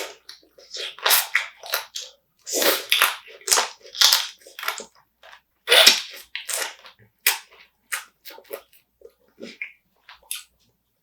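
Close-up crunching and chewing of spicy marinated raw crab, the shell cracking between the teeth in short, irregular bursts that grow sparser near the end.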